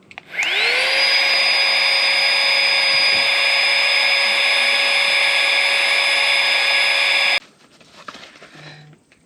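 A small electric motor spins up with a rising whine, runs steadily for about seven seconds, then is switched off abruptly.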